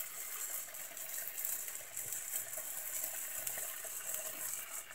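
Whole golden pomfret frying in oil in a pan, a steady quiet sizzle.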